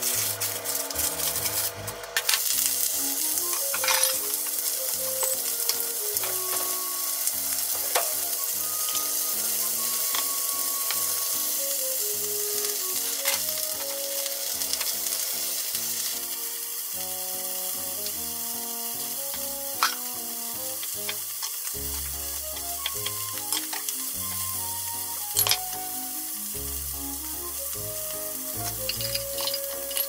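A block of ground meat sizzling in a hot oiled frying pan, the sizzle starting suddenly about two seconds in as the meat goes into the pan, with a few sharp knocks as it is worked with a wooden spatula. Soft background music runs underneath.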